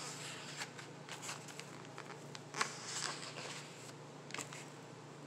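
Paper pages of a thick user's manual being turned and handled: soft rustles with a few sharper flicks, the loudest a little past halfway. A low steady hum runs underneath.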